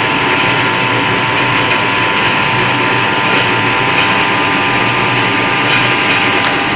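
Camphor tablet packaging machine with a vibratory bowl feeder running: a steady mechanical clatter and hum with a constant high whine.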